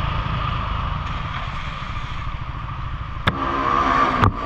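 Motor scooter engine running at low speed under steady wind rumble on the camera, then idling with a steady low hum. There is a sharp click about three seconds in and another near the end.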